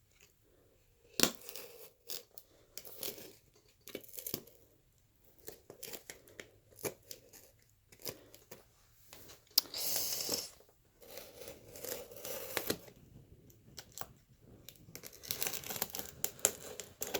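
A shipping box being opened by hand: tape and packing material tearing and crinkling in irregular bursts with sharp clicks, the longest tears about ten seconds in and again near the end.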